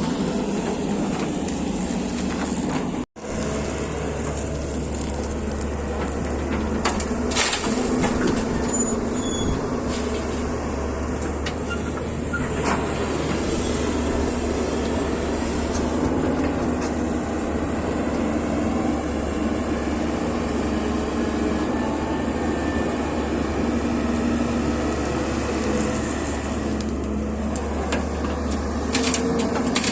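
Diesel engine of a working excavator running steadily, with a few clanks and knocks. The sound cuts out for an instant about three seconds in.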